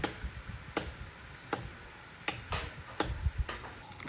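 Repeated sharp strikes of a hand tool on wood, about one every three-quarters of a second, each with a short ringing tail, as in chopping or driving a felling wedge.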